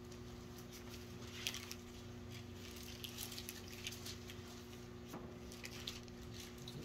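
Quiet room tone with a steady low hum and scattered faint clicks and rustles.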